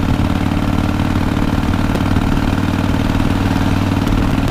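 Harley-Davidson Softail CVO Fat Boy's air-cooled V-twin engine running steadily at cruising speed, heard from the rider's seat.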